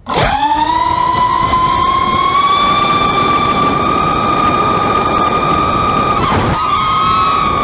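FPV quadcopter's electric motors and propellers spooling up for takeoff: a whine that rises sharply in pitch at the start, then holds steady and high as the craft climbs. A little after six seconds the pitch dips briefly with a throttle change, then comes back as several slightly different tones.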